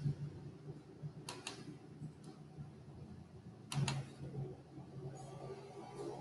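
Computer mouse clicks: two quick pairs of sharp clicks, one about a second and a half in and one near four seconds, over a faint steady hum.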